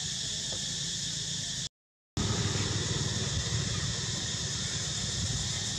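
Steady outdoor insect chorus, an even high buzz, over a low rumble. The sound cuts out completely for about half a second just before two seconds in, and comes back with the rumble louder.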